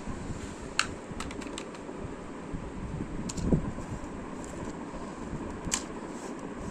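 Small sharp plastic clicks and taps from handling a laptop's optical DVD drive as it is worked loose from its bay: a distinct click about a second in, a quick cluster just after, and single clicks near the middle and near the end, over a steady low hum.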